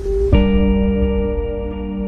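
Intro background music: a rising whoosh ends in a sudden hit about a third of a second in. A bell-like ambient chord then rings on steadily.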